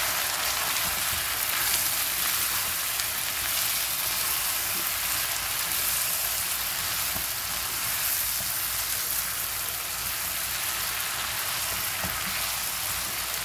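Chicken leg pieces frying in hot oil in a frying pan: a steady sizzle.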